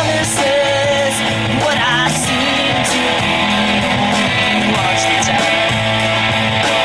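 Live rock band playing, with guitar, drums with cymbal hits, and singing.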